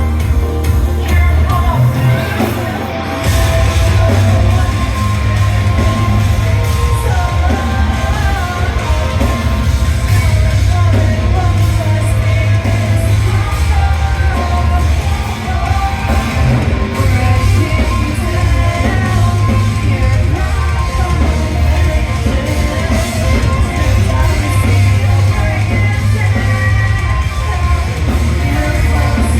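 Rock band playing loud live music with heavy bass and drums and sung, shouted vocals, dropping back briefly about three seconds in.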